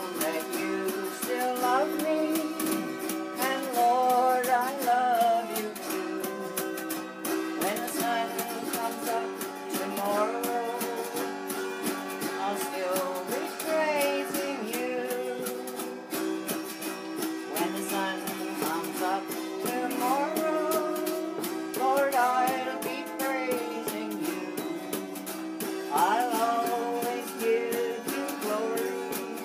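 Two autoharps strummed in slow chords, with voices singing a gospel hymn along with them.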